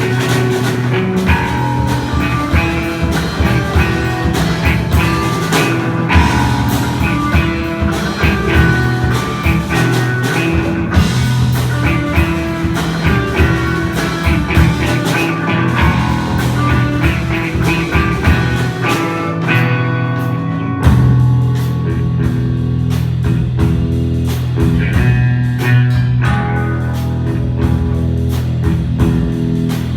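Live rock band playing a bluesy rock number, with guitar over bass and a drum kit.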